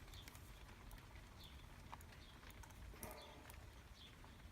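Near silence with a few faint light clicks and taps from small lock pins being handled and taken out of a dismantled euro cylinder lock.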